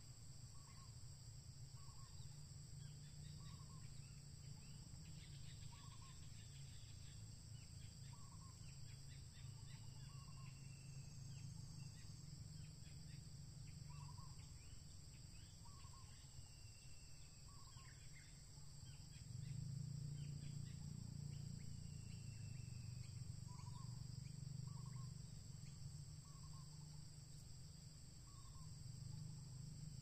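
Faint ambience of a steady high insect drone, with scattered short bird chirps and a short low call repeating every second or two. Underneath runs a low rumble that grows louder in the middle.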